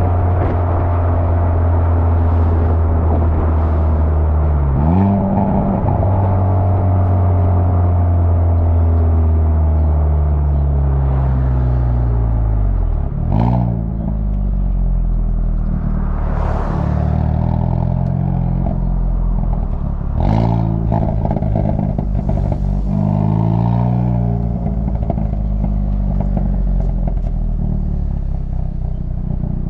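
2020 Hyundai Veloster N's turbocharged 2.0-litre four-cylinder on its stock exhaust in Sport+ mode. The revs jump sharply about five seconds in, then fall away, and there are several loud pops from the exhaust midway. More rev rises and falls follow, with a run of small crackles near the end.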